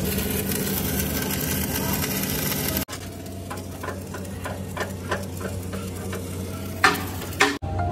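Arc welding crackling steadily over a low hum. After a cut about three seconds in come a run of light metal taps, then two sharp metal strikes near the end.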